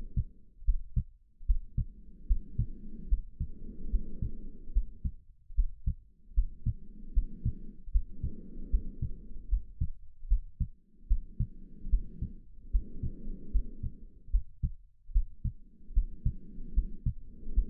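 Human heartbeat, a steady run of low thumps, under slow breathing heard as soft rushing swells of in- and out-breath, one pair about every four to five seconds.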